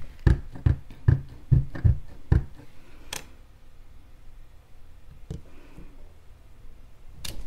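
Clear photopolymer stamp on an acrylic block tapped repeatedly onto an ink pad to ink it, about two or three soft thumps a second, stopping about two and a half seconds in. Then come a few sharp clicks of the acrylic block against the paper and mat, the loudest near the end.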